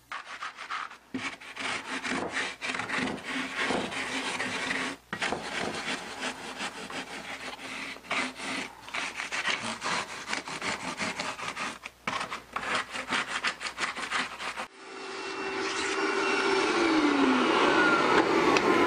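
A Surform shaping plane rasping down blue insulation foam in quick, uneven strokes as a gully is carved out. About three-quarters of the way in the scraping stops and a steady rushing hiss swells up in its place, with a few falling whistle-like tones.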